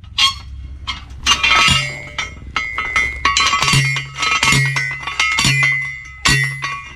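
Metal post driver pounding a fence post: repeated ringing metallic clanks, a little under one a second.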